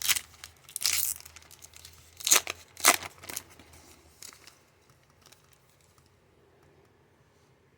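Foil trading-card pack wrapper being torn open and crinkled by hand, a handful of sharp ripping and crinkling sounds over the first four seconds, the loudest two a little over two and nearly three seconds in, then only faint room quiet.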